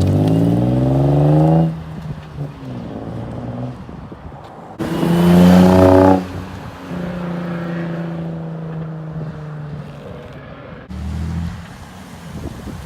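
Nissan 350Z V6 running through an aftermarket exhaust: the engine note climbs in pitch as it revs and then drops off, revs again louder for about a second and a half around five seconds in, then holds a steady note with a short blip near the end.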